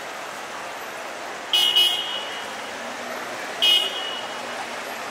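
Car horn honking twice: a blast of about half a second about a second and a half in, then a short toot about two seconds later, over steady street noise.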